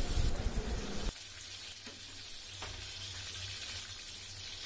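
Sliced onions frying lightly in hot oil in a metal pot, sizzling steadily. A spatula stirs and scrapes them for about the first second, then the sizzle carries on alone and quieter.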